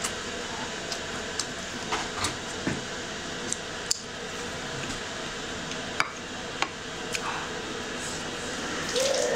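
A person eating spicy malatang with chopsticks: chewing and mouth sounds with scattered short clicks of chopsticks and food against the bowl, over a steady background hiss. A brief voiced sound comes near the end.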